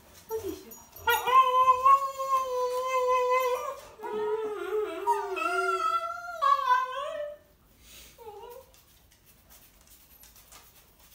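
A Cavalier King Charles spaniel "talking": a run of drawn-out howls, the first held steady, the next wavering, and a third falling in pitch, with a short one near the end.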